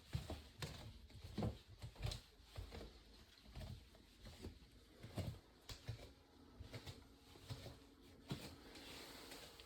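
Soft, irregular taps and thumps from a Maine Coon cat's paws batting and pouncing at a butterfly.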